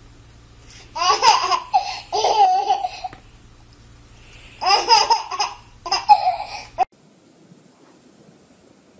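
Baby laughing in two bouts of high-pitched giggles, the first about a second in and the second just before the middle, then cut off suddenly.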